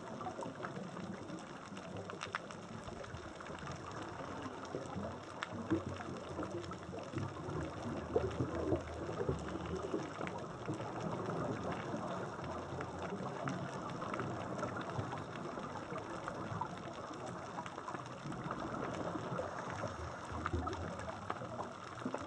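Underwater ambience on a coral reef seabed: a steady, muffled rushing noise with scattered faint clicks and crackles.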